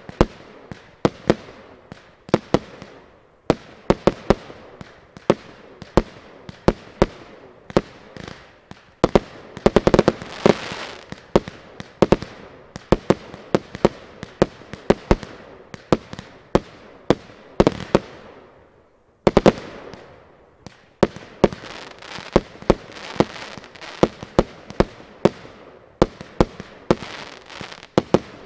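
Zena Colour Box 100-shot compound fireworks cake firing: a steady run of sharp shots and bursts, about two a second, with denser, crackling stretches. A brief lull comes about two-thirds of the way through, then a tight cluster of reports.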